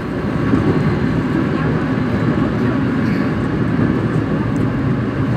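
Korail 341000-series electric multiple unit running on Line 4, heard from inside the car: a steady, loud rumble of wheels and running gear.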